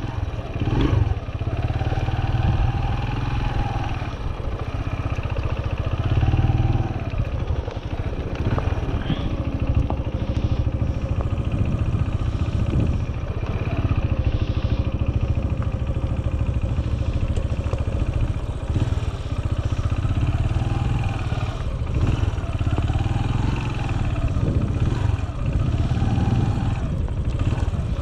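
A small farm vehicle's engine runs steadily while the cows are being moved. Its pitch rises and falls every few seconds as the throttle changes.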